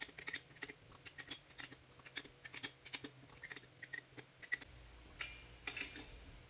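Light, irregular metallic clicks and taps, a few each second, from lug nuts being tightened on a car wheel with a tire iron. A low hum comes in about two-thirds of the way through.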